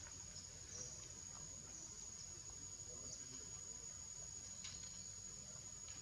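A steady, high-pitched insect drone, with a few faint short chirps on top and a low background rumble.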